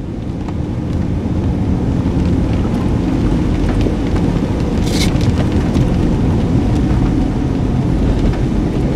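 Steady low rumble of a vehicle driving on a wet road, heard from inside the cabin, with a brief hiss about five seconds in.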